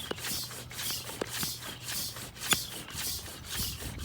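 Air pump inflating a freshly plugged garden tire, partway between 20 and 30 PSI. It gives rhythmic hissing puffs about two or three a second over a low steady hum, with a few sharp clicks, the loudest about two and a half seconds in.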